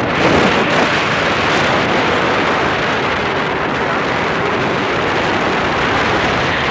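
Loud, steady rush of air buffeting the microphone of a paraglider pilot in flight.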